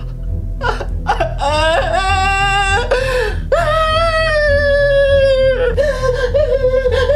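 A man wails in anguish in several long, drawn-out cries, each jumping up in pitch as it starts, trailing into a lower wavering moan near the end. Background music with a deep steady bass runs underneath.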